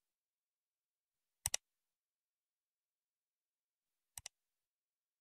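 Computer mouse click sound effects, two double clicks: one about a second and a half in, and a quieter one near the end.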